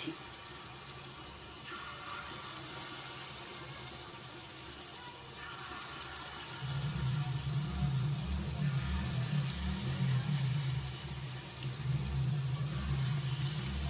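Palm-fruit fritter batter sizzling steadily in hot oil in a kadai. A low droning hum comes in about halfway through and stays.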